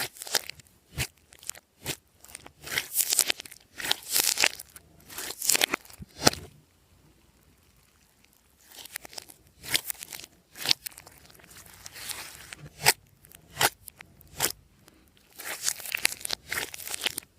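Hands kneading and pressing glossy slime, making irregular crackling pops and clicks, with a pause of about two seconds near the middle.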